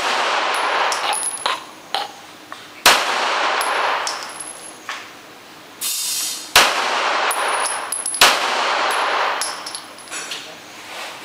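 A 9mm pistol fired three times, about three and a half seconds and then under two seconds apart, each sharp crack echoing for about a second, with the echo of a shot fired just as it begins. Between the shots, light high metallic clinks of ejected brass casings landing on the concrete floor.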